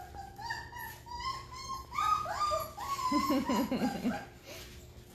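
Three-week-old Great Bernese puppies whining and squeaking in a string of short, high, sliding cries. A lower, rapidly wavering cry comes about three seconds in.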